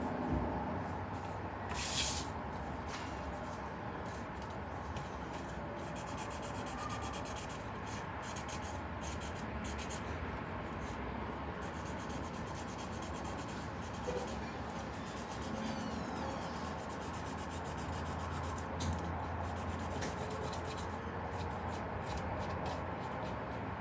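Hands working craft materials: continuous rubbing and scraping with many small clicks, and a sharper tap about two seconds in.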